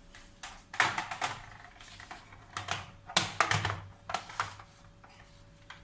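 Irregular light plastic clicks and clatter, in a few short clusters, from handling a Nerf blaster and its darts.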